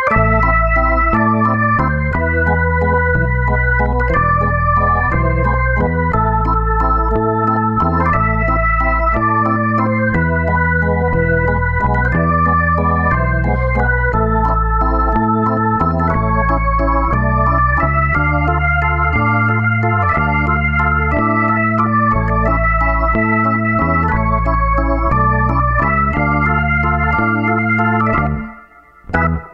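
Background music: an electronic organ-style keyboard melody over a steady bass line, which stops near the end.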